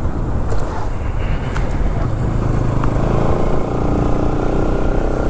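Motorcycle engine running while riding, with heavy wind rumble on the microphone; a clearer engine tone comes up about three seconds in.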